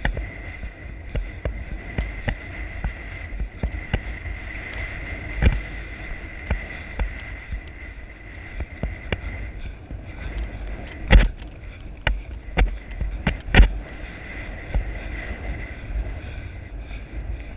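Hoofbeats of a ridden horse running at speed on grass, a steady rhythm of dull thuds heard through the rider's camera, with wind on the microphone and a thin steady high whistle. Two or three much louder knocks come about two-thirds of the way through.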